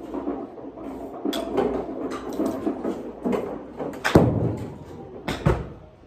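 Indoor golf range practice: a run of sharp knocks and clacks from golf balls being struck and hitting the nets. The loudest comes about four seconds in, and two more follow close together about a second later.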